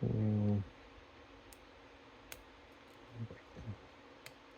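A few faint, sparse clicks of a lock pick working the pins of a Master Lock M530 pin-tumbler padlock under tension, while chasing a false set. A brief low hum from a person's voice comes at the very start.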